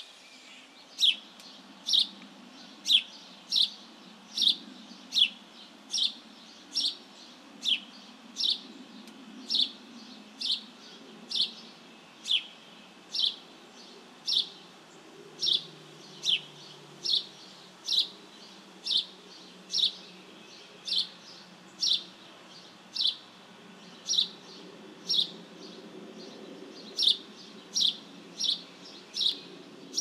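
Male house sparrow chirping: a single sharp cheep repeated steadily about once a second, over and over.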